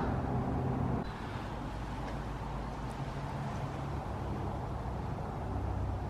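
Steady low rumble with a faint hiss, a little louder for the first second, and a couple of faint ticks.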